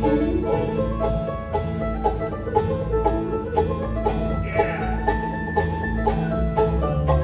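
Bluegrass band of banjo, mandolin, acoustic guitar, fiddle and upright bass playing an instrumental passage without singing: quick plucked notes over a steady bass.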